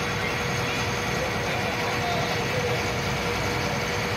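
A passenger boat's engine running steadily, heard from on deck, with a constant hum.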